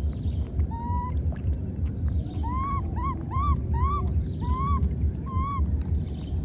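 Baby macaque calling: a short cry about a second in, then a run of six rising-and-falling coos about half a second apart, over a steady low rumble.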